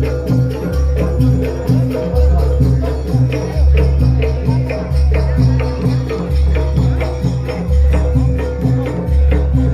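Loud jaranan dance music over a sound system: deep bass notes about every second and a half under fast, steady jingling and clicking percussion.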